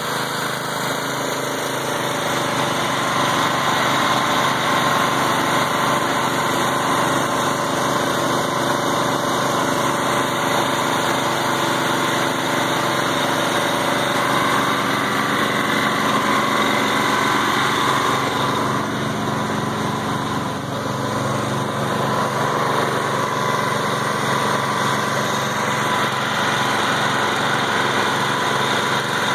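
Small engine of a homemade water-well drilling rig running steadily, powering the rig's hydraulics while it drills. The level dips briefly about twenty seconds in.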